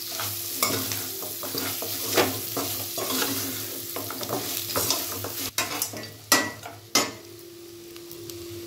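Mutton frying in a metal kadai, sizzling, while a slotted metal spatula stirs and scrapes the pieces around the pan. About two-thirds of the way through come three sharp metal knocks, the loudest sounds here; after that the stirring stops and only the sizzle and a low steady hum go on.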